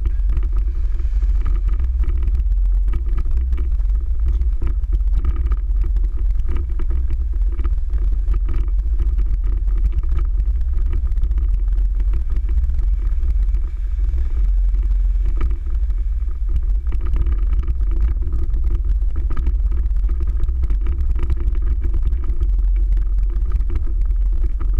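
Steady low rumble of a car driving slowly on an icy, slushy road, picked up by a hood-mounted camera: engine and road noise.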